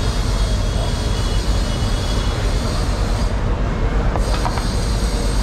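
Steady low rumble and hiss of background machinery noise, with a couple of short knocks about four seconds in.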